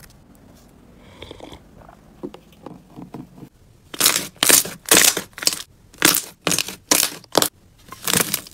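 Crunchy slime being squeezed and pressed by hand: faint crackling at first, then from about halfway a run of loud crunches, two or three a second.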